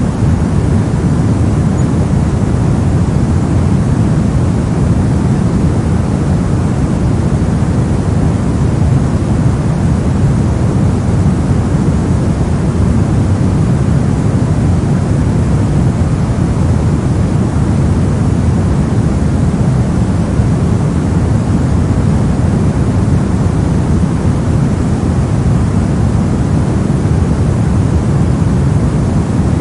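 Steady, unbroken soft noise, a constant hiss-like rush weighted toward the low end, without rhythm or change.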